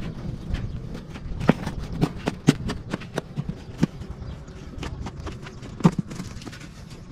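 Irregular sharp knocks and taps, one or two a second, over a low steady rumble; the loudest come about a second and a half in, at two and a half seconds, and near six seconds in.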